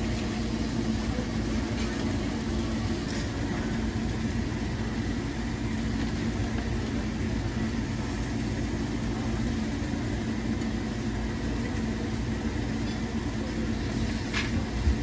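Steady low mechanical hum of a machine running, with a single sharp knock near the end.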